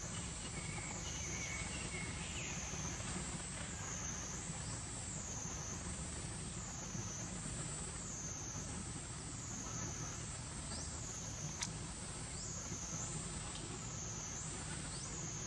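Cicadas droning in the trees: a high-pitched buzz that swells and fades about every second and a quarter, over a low steady rumble. A single sharp click comes about three-quarters of the way through.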